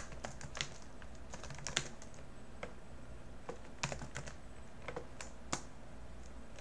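Computer keyboard being typed on: faint, irregular keystrokes with a short pause in the middle.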